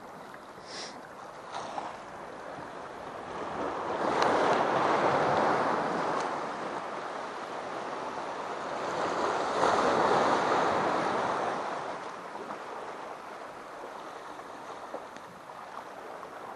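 Sea swell washing over shoreline rocks, a rushing hiss of surf that surges twice, about four seconds in and again about ten seconds in, then eases off.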